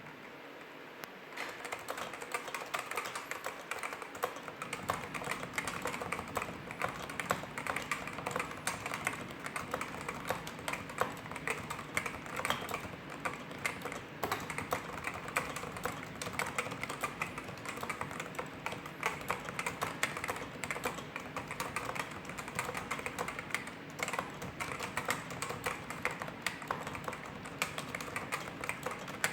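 Realforce RGB keyboard with Topre electrostatic capacitive switches being typed on continuously. A rapid, steady run of keystrokes starts about a second in.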